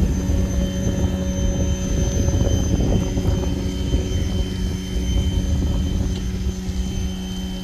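Giraffe Tools Grandfalls electric pressure washer running steadily, its motor and pump giving a constant hum with a high whine over the rushing spray.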